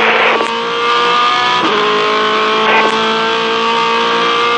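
Kelly Racing V8 Supercar's V8 engine running hard at high, nearly steady revs, its pitch dipping briefly a few times and picking straight back up.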